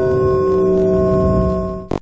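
Steel plate gong target ringing after a pistol bullet strikes it: a steady metallic ring of several tones that cuts off abruptly with a click near the end.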